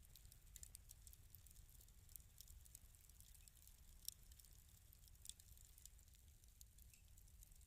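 Faint fireplace fire crackling: scattered sharp pops and snaps over a low steady rumble, with a louder pop about four seconds in and another a second later.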